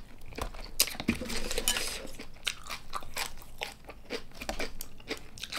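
Shell of a large soy-sauce-marinated tiger prawn cracking as it is pulled apart by hand and snipped with kitchen scissors, close to the microphone: a run of sharp, irregular cracks and clicks, with some chewing.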